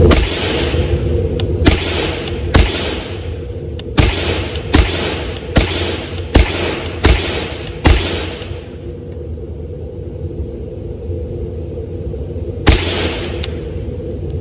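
An AR-15 converted to .22 LR with a CMMG Bravo conversion kit fires semi-automatic shots: about nine sharp reports at roughly one a second, then, after a pause of some four seconds, one more shot near the end.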